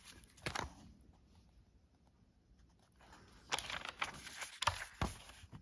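Paper and cardstock pages of a handmade junk journal being turned by hand: a short rustle about half a second in, then a run of rustles and page flaps with a couple of sharp snaps near the end.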